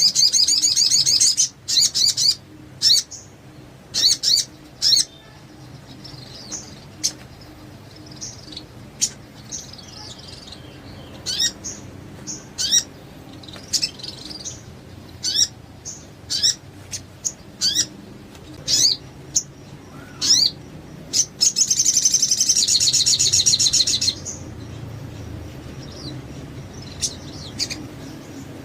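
Sogon songbird tutor ('masteran') song: short, sharp, high chirps and falling whistles repeated about once a second, broken twice by a long, fast, high trill, once at the start and again about 22 seconds in.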